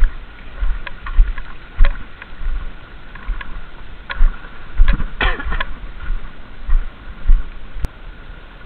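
Stream water sloshing and splashing in irregular surges around the legs of someone wading through a shallow creek, with sharp clicks and knocks mixed in. A faint steady high hum runs underneath.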